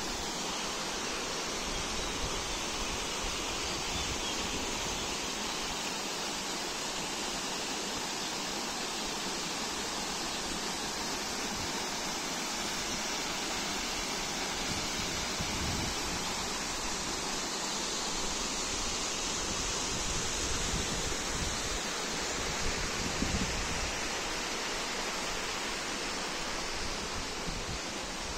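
Steady rushing of water from a cascading waterfall, an even hiss-like roar with no break. A few low rumbles of wind on the microphone come through about halfway and again later.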